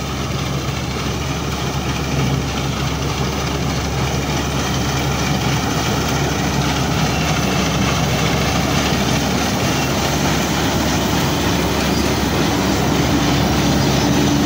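Massey Ferguson MF 186 combine harvester running under load while cutting and threshing wheat: a steady engine drone under the rush of the working header and threshing machinery, growing louder toward the end as the machine draws close.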